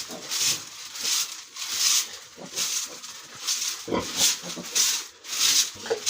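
Broom sweeping dry sawdust across a pig pen floor in quick, even strokes, about two a second, with a pig grunting briefly a couple of times.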